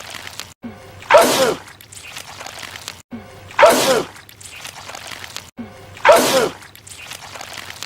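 A man sneezing, the identical sneeze repeated three times about two and a half seconds apart. Each is a short rising intake of breath followed by a loud sneeze whose voice falls in pitch.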